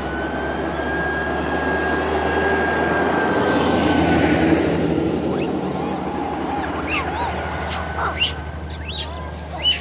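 A truck drives past, its engine and road noise building to a peak about halfway through and then fading. In the second half come short high squeaky calls and a few sharp clicks.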